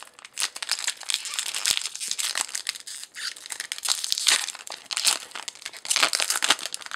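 Foil wrapper of a Yu-Gi-Oh trading-card booster pack crinkling and being torn open by hand: a dense, uneven run of crackles and rustles.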